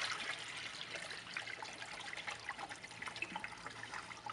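Water poured from a plastic bucket into a pool pump's open strainer basket housing, splashing and trickling steadily: filling the housing to prime the pump.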